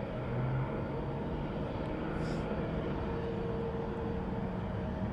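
Jet airliner engines running at an airport, a steady rumble with a steady hum.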